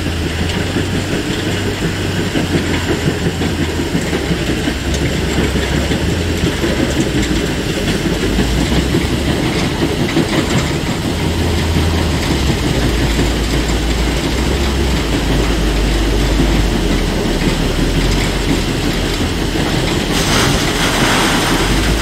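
Heavy diesel dump trucks running and manoeuvring, their deep engine note stepping up and down in pitch, over a steady rattling clatter. A brief hiss comes near the end.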